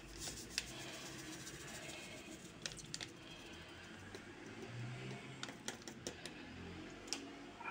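Faint, scattered clicks and crinkles of a foil yeast sachet being shaken and tapped over a bowl as dry yeast is sprinkled onto warm water.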